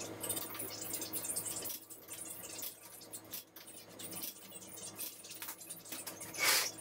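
Hand tools scraping and clicking against the Jeep's front suspension as a new shock is fitted, over a faint steady hum, with a louder clatter near the end.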